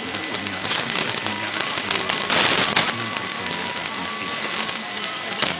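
Weak mediumwave AM broadcast on 917 kHz received on a software-defined radio, almost buried in hiss and crackling static, with a loud static crash about two and a half seconds in and a sharp crack near the end. A faint steady whistle runs underneath, and traces of programme audio come through the noise.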